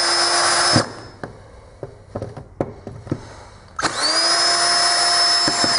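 Cordless drill trying to back out a seized screw in an angle grinder's gear housing. The drill motor runs steadily and stops about a second in; after a few light clicks and knocks it winds up again and runs until just before the end.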